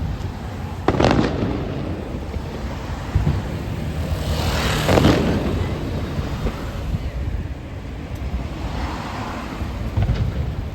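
Aerial fireworks shells bursting over a steady low rumble: a sharp bang about a second in, a larger crackling burst around the middle, and softer thuds near the end.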